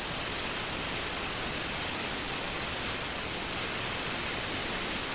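Tenya CUT50 plasma cutter arc hissing steadily as the torch cuts through 12 mm steel plate.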